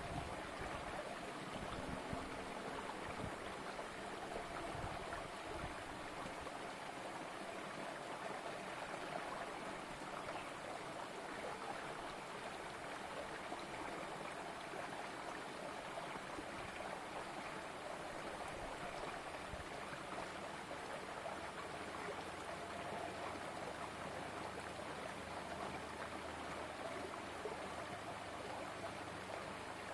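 Shallow rocky stream running steadily, water spilling and trickling between boulders.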